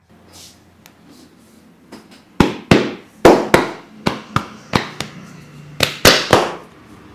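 Percussive massage strikes: about eleven sharp hand slaps, loosely in pairs at two to three a second, starting about two seconds in.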